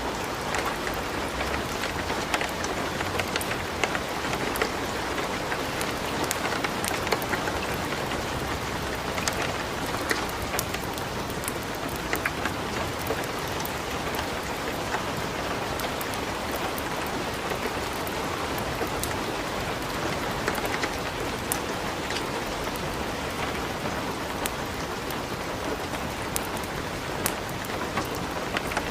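Light rain with a wood fire crackling in a fireplace: a steady hiss of rain with frequent sharp crackles and pops scattered through it.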